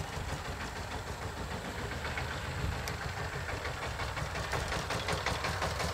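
Diesel locomotive engine approaching at the head of an express train, working under load up a gradient: a steady low rumble with a rhythmic beat that grows slightly louder near the end.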